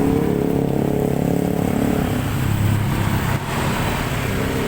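Road vehicle engines running in traffic; the engine hum shifts to a lower pitch about two seconds in.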